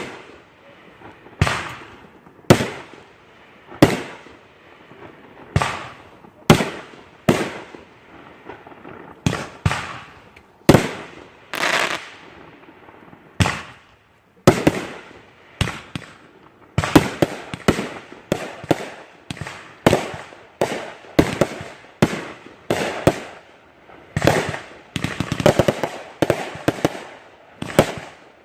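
Backyard fireworks going off in a series of sharp bangs about a second apart, each trailing away. From about halfway on they come faster and overlap.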